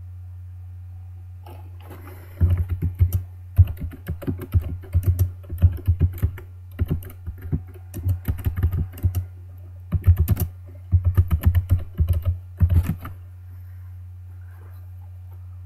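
Typing on a computer keyboard in quick runs of loud keystrokes with short pauses between them, starting about two seconds in and stopping a couple of seconds before the end. A steady low hum runs underneath.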